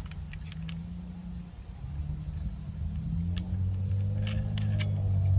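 A low, steady engine rumble that grows louder in the second half. Over it come a few faint, light clicks as the angle grinder's outer flange nut is threaded onto the spindle by hand.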